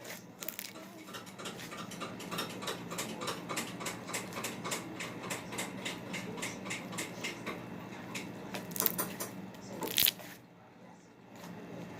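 Slime being kneaded and squeezed by hand, giving a quick run of small clicks and pops, about three or four a second, with a louder snap near the end.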